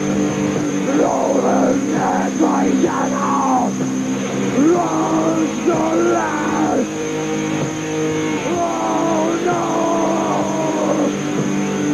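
Live rock band: a man sings long phrases into the microphone over held, sustained electric guitar chords.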